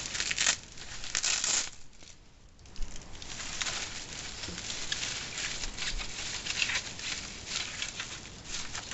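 Styrofoam packing being pulled apart and handled, making a crinkling rustle in uneven bursts, with a brief lull about two seconds in and a sharp click just before it picks up again.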